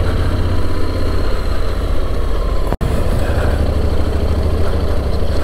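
Motorcycle being ridden slowly through city streets: a steady low engine rumble under wind and road noise on the on-board microphone. The sound drops out for an instant about halfway through.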